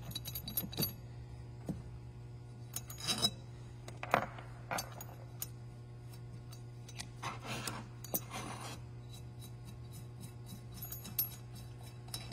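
Small metal valve-train parts of a Honda GX160 cylinder head clicking and clinking as the rocker arms and their nuts are taken off by hand. There are scattered light clicks and a few brief scrapes over a steady low hum.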